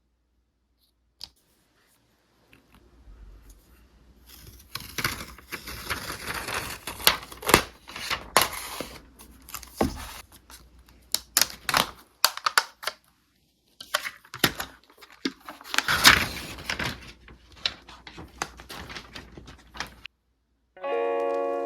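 Packaging being opened and handled: paper and plastic being torn and crinkled, with many sharp clicks and taps mixed in. The sounds come in two spells with a short pause between them. Music starts just before the end.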